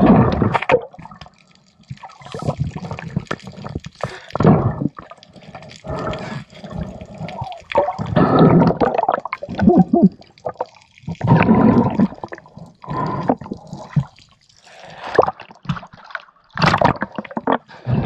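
Water sloshing and bubbling heard underwater, coming in uneven surges a second or so long with short quieter gaps.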